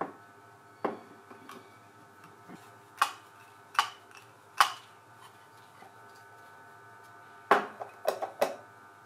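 Hard PVC plastic parts clicking and knocking as they are handled and fitted together: about eight sharp taps, three of them close together near the end.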